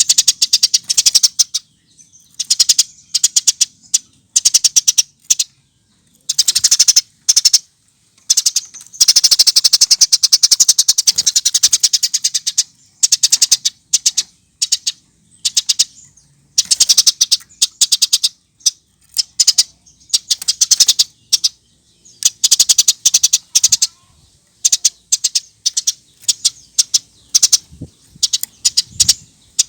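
Eurasian tree sparrow chirping incessantly: quick bouts of sharp, high chirps with short pauses between them, and one longer unbroken chattering run near the middle.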